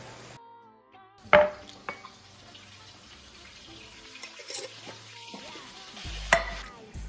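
Beef patties sizzling in an oiled cast-iron skillet, cutting off just after the start. Background music follows, with a sharp clatter a little over a second in and another knock near the end.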